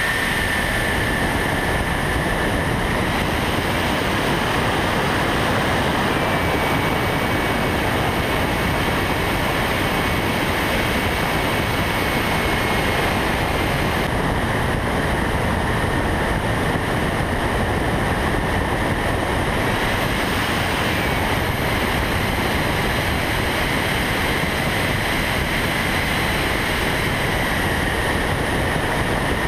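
Radio-controlled model plane in flight, heard from a camera mounted on board: a steady rush of wind and propeller noise with a motor whine that rises in pitch a few seconds in, drops back about halfway through, and briefly rises again around two-thirds of the way.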